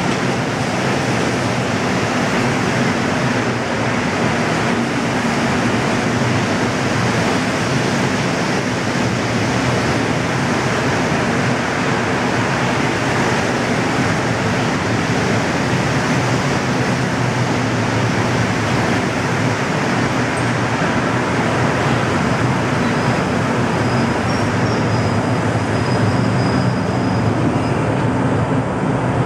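Montreal Metro MR-73 rubber-tyred train running through an underground station, a steady loud rumble and hum of the train along the platform.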